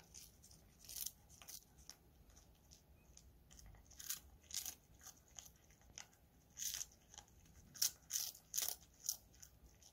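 A cat crunching on a dried capelin (shishamo) treat: faint, irregular crunches, coming more often and a little louder in the second half.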